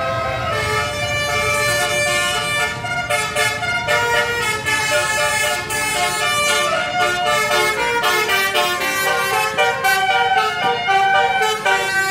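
Bus telolet horn, a set of electric air-horn trumpets, playing a tune of quick stepped notes over and over, with a low engine rumble underneath.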